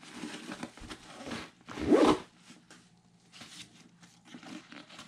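Zipper on a nylon camera backpack being pulled, with rustling of the ripstop fabric. There are several rasping strokes, and the loudest and longest comes about two seconds in.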